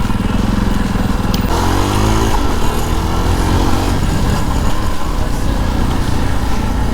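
Motorcycle engine running under way, with wind and road noise on the rider's microphone. The revs rise briefly about one and a half seconds in.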